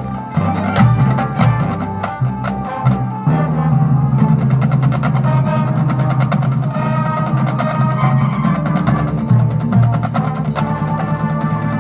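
Marching band playing: sustained brass chords over drums and percussion, the sound filling out about three seconds in.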